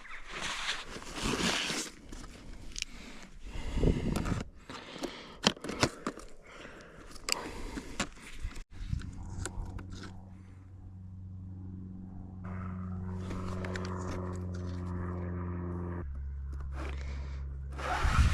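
Outdoor wind noise on the microphone with scraping and clicking handling sounds. After a sudden cut about halfway through, background music enters with sustained chords that change near the end.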